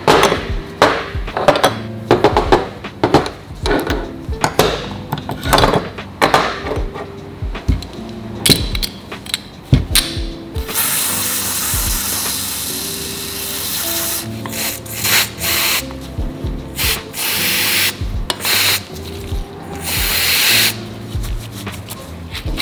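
Metal bicycle parts clinking and knocking as they are handled. About eleven seconds in, an aerosol spray hisses for about three seconds through a red straw into a vintage quill pedal's axle end, followed by two shorter sprays. Background music plays under it all.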